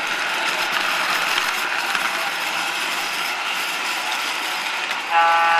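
MTH EP-2 Bipolar O-gauge model locomotive running along the track, a steady mechanical running noise from its gears and wheels. Near the end its sound system gives a short, louder horn blast.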